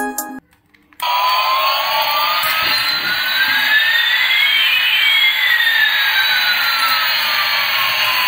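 Toy A380 airliner's electronic jet-engine sound effect, starting about a second in: a steady jet hiss with one whine rising and another falling, crossing midway.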